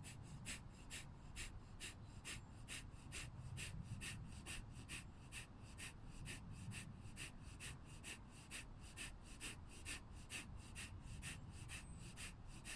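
A woman doing kapalabhati breathing: a rapid, even series of short, sharp exhalations through the nose, about two a second, each followed by a passive inhale. A set of 28 pumping breaths.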